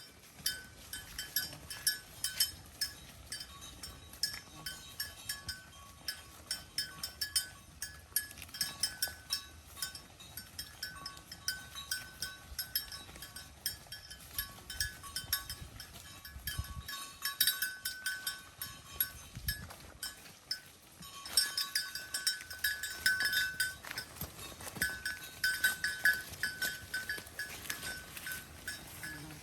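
Cattle eating hay: irregular crunching and rustling of chewing and pulling at the hay. Short clear ringing tones come again and again through it, busier and louder in the last third.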